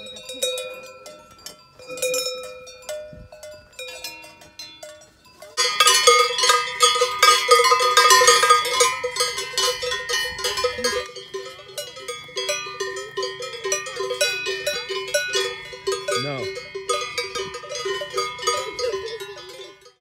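Many cowbells hanging from the collars of grazing cattle, clanking and ringing irregularly in an overlapping jumble. About five and a half seconds in the bells become suddenly louder and denser.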